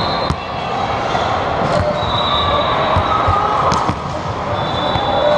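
Volleyballs being spiked and slapping the hardwood gym floor during a hitting warm-up: several sharp smacks a second or two apart, echoing in a large hall over a steady background of chatter.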